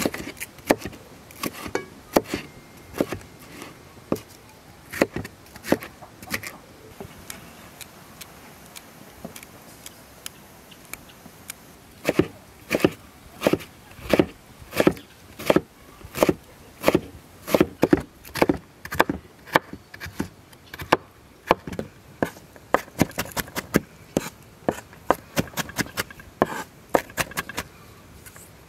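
Large kitchen knife chopping a red bell pepper on a wooden cutting board: a few scattered taps of the blade on the board at first, then, from about twelve seconds in, a steady run of sharp chops, about two a second.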